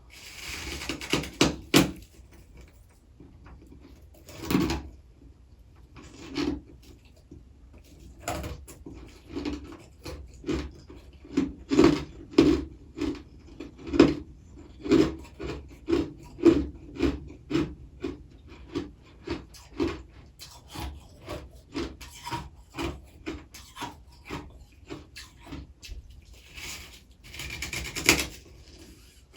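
Close-up crunching of freezer frost being bitten and chewed: a few loud crunchy bites at first, then a long run of steady chewing crunches about two a second, and another burst of crunching near the end.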